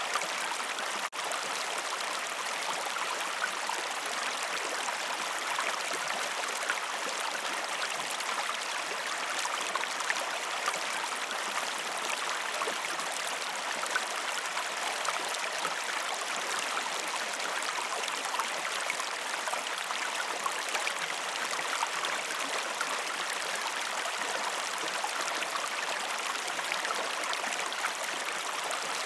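Waterfall: a steady, even rush of falling water, with a brief dropout about a second in.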